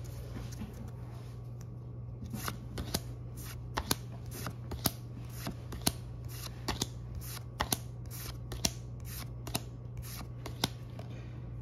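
Pokémon trading cards from a booster pack being flipped through one at a time: a string of short, crisp card snaps, about two or three a second, starting about two seconds in and stopping shortly before the end.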